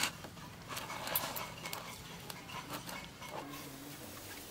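Scattered light knocks and rubbing from a hand working flour dough in a stainless steel bowl, with a sharp click at the start.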